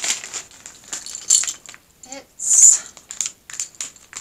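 A LEGO minifigure mystery-pack foil bag being crinkled and torn open by hand: a run of short crackles and rustles, loudest in one scrunching burst a little past halfway.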